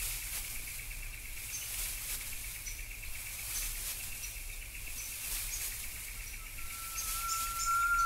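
Eastern whipbird: near the end the male's long, steady whistle note starts, the lead-in to its whip-crack. Behind it runs a steady high trilling buzz, with faint chirps of other birds.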